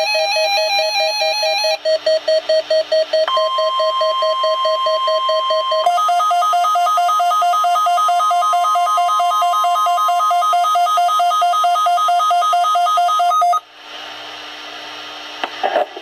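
Midland NOAA weather alert radios sounding their repeating electronic alert beeps together, joined about three seconds in by the weather radio's steady warning alarm tone, which holds for about ten seconds. The tones signal an incoming Required Weekly Test alert. Near the end the tones cut off suddenly, leaving the hiss of the radio broadcast.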